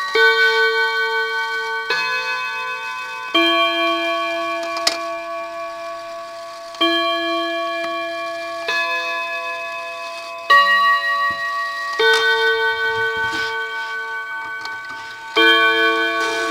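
1934 C. Rosenfelder Co. German-made chiming mantel clock sounding its chime: a slow sequence of eight struck notes, each ringing on and slowly fading before the next. A light click sounds about five seconds in.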